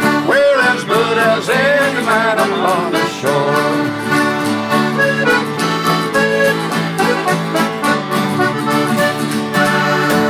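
Folk band playing the song's closing bars: a button accordion carrying the tune over strummed acoustic guitars and a mandolin. Singing voices are heard in the first few seconds.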